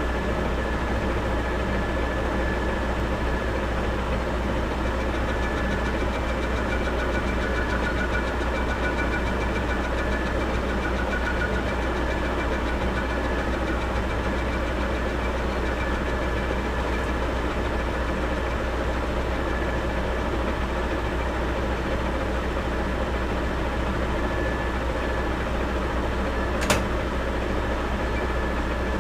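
Metal lathe running under power, taking a cut on the workpiece: a steady mechanical hum with faint high steady tones over it. One sharp click near the end.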